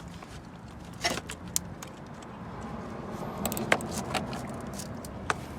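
A handful of sharp, light metallic clicks and clinks, spread out, the loudest about two-thirds of the way through: a car battery's terminal clamp and cable being handled and fitted back onto the post.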